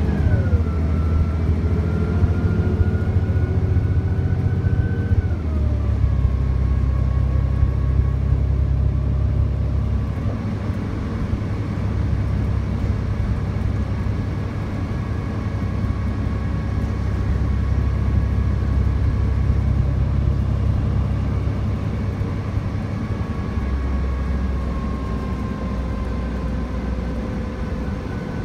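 A city bus under way: a steady engine rumble with a transmission whine. The whine rises slightly, then drops in pitch at a gear change about five seconds in and slowly falls after that.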